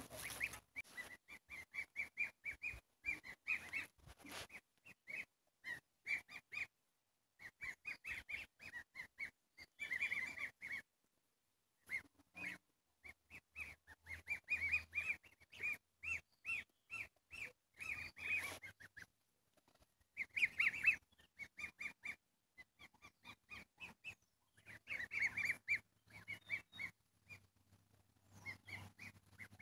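Bird calling in quick runs of short, high chirps that repeat for several seconds at a time, with brief pauses between runs.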